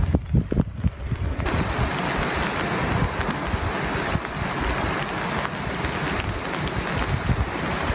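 Wind buffeting the phone's microphone at first, then, from about a second and a half in, a steady rushing hiss of river water running over rapids.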